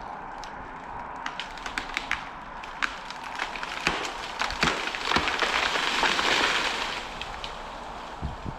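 A hinge-cut tree cracking and splintering as it tips over, with its branches crashing and rustling down through the brush, loudest around the middle. A chainsaw runs faintly at idle underneath.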